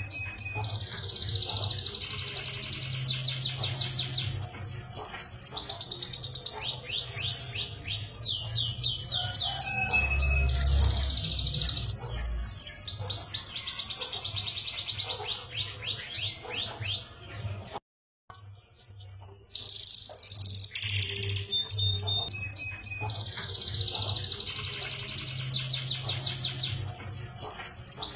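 Domestic canary singing long, fast rolling trills and rapid runs of repeated high chirps, over a steady low hum. The song cuts out completely for a moment a little past the middle, then resumes.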